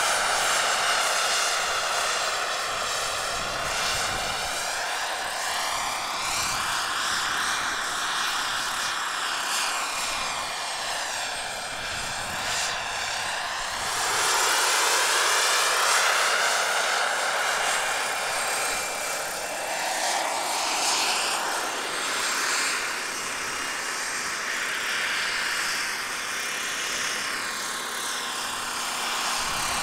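Radio-controlled scale Bell 47G-3B-1 model helicopter in flight: a steady whir of its motor and rotors that shifts in tone as it moves about and grows louder about halfway through.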